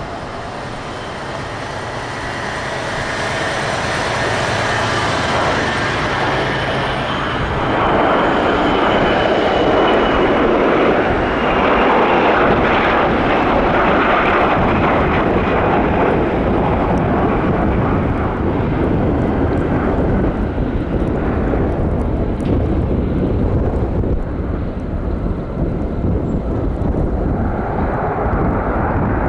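Boeing 727-223 freighter's three Pratt & Whitney JT8D-17 turbofan engines, their whine growing louder over the first several seconds, then a loud, steady jet roar from about eight seconds in.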